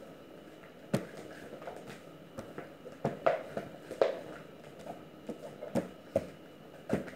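Pizza dough being kneaded by hand on a plastic sheet over a counter: irregular slaps and knocks as the dough is lifted, folded and pressed down.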